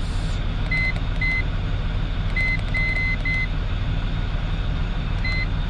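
Short high electronic beeps from a handheld OBD scan tool's keypad as its buttons are pressed, about seven at uneven intervals, a few in quick succession. Under them runs the steady low idle of a Land Rover Discovery 3's 2.7-litre TDV6 diesel, running so that the new alternator's charging voltage can be read.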